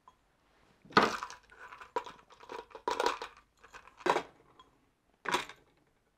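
Metal scope-mount parts (a Picatinny rail and scope rings) being handled and set down on a workbench: a series of separate clinks and knocks roughly a second apart, the first, about a second in, the loudest.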